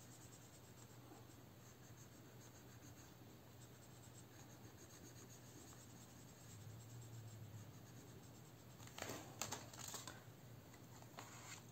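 Near silence with the faint scratching of a marker pen colouring in boxes on a paper tracker sheet. About nine seconds in come a few soft clicks and rustles as the binder page is handled.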